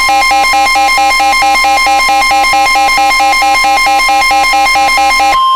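Emergency alert attention signal: a steady high tone with a fast electronic beeping pattern pulsing over it, about four to five beeps a second. The beeping stops shortly before the end, leaving the steady tone alone.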